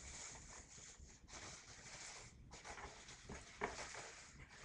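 Hands digging through polystyrene packing peanuts in a cardboard box: a continuous crinkly rustle of foam pieces shifting against each other, with a brief lull about halfway and a sharper crackle about three and a half seconds in.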